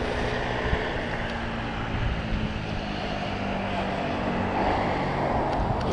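Wind and road noise on a cyclist's microphone while riding a pedal bicycle, with the steady drone of passing motor traffic.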